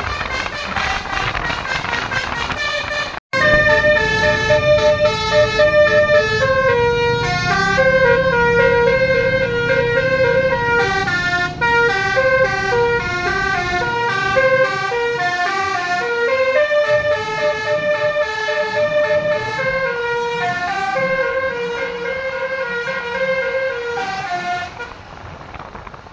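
Basuri musical horn, a set of roof-mounted trumpet horns driven by a melody module, playing a fast tune of quick stepped notes. There is a short cut about three seconds in, and the tune stops near the end.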